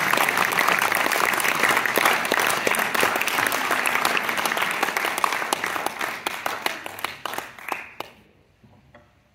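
Theatre audience applauding: dense clapping that thins out to a few scattered claps and dies away about eight seconds in.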